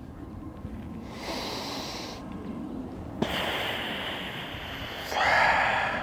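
A person breathing out heavily in several long, airy breaths, the loudest one near the end, with a single sharp click about three seconds in.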